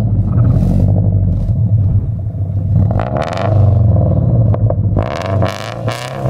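Scion FR-S's flat-four engine running and revving as the car is driven, with bursts of hiss about three seconds in and again near the end.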